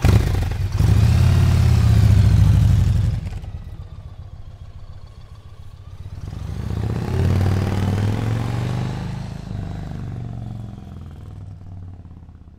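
Yamaha Stratoliner V-twin motorcycle engine catching and revving hard for a few seconds, then dropping back. It rises again as the bike pulls away, then fades steadily into the distance.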